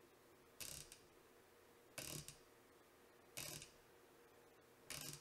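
The channel selector knob of a Stryker SR-955HP transceiver being spun fast, making four short bursts of rapid detent clicks, each a little over a second apart.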